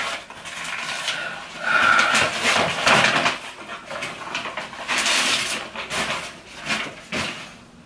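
Paper wrapping rustling and crinkling in irregular bursts as it is pulled open by hand to unwrap an item.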